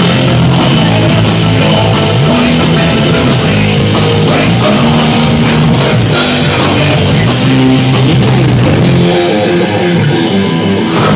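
Live metal band playing loudly, with electric guitars, bass and a drum kit.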